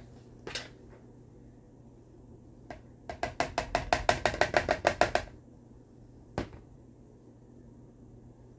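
A quick run of about a dozen knocks over two seconds, about three seconds in: a spoon striking the side of a mixing bowl while scooping and working batter. Single light clicks of utensils come just before and after.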